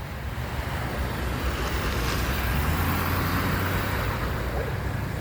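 Street traffic at an intersection: a steady low engine rumble, with a vehicle's engine and tyre noise swelling as it passes a couple of seconds in.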